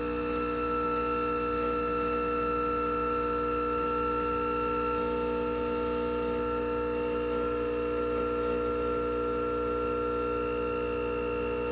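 Rancilio Silvia espresso machine's vibratory pump running with a steady hum while it pushes water through the puck during a shot.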